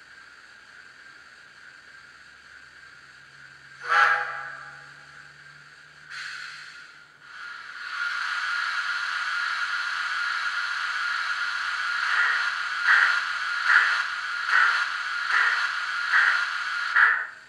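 Steam-locomotive sound effects from the ESU LokSound V4.0 decoder's R class sound project, playing through the speaker of an O scale Victorian Railways R class model. A soft steady steam hiss and a brief sharp sound about four seconds in give way to a loud steady hiss from about eight seconds. Slow two-cylinder exhaust chuffs, a little under a second apart and quickening slightly, start about twelve seconds in as the engine gets under way.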